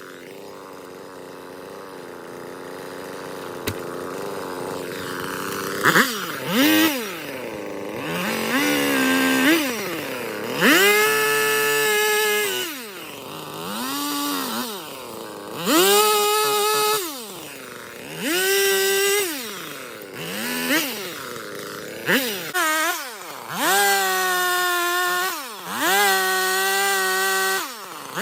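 Husqvarna 450 Rancher two-stroke chainsaw idling, then revved to full throttle about ten times in bursts of a second or so, each time falling back to idle, as it makes small cuts.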